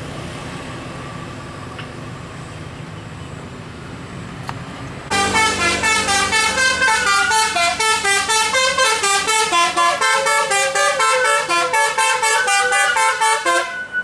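Musical "telolet" bus air horn playing a fast tune of short multi-tone notes, about four or five a second, starting abruptly about five seconds in. Before it there is only steady engine and road noise.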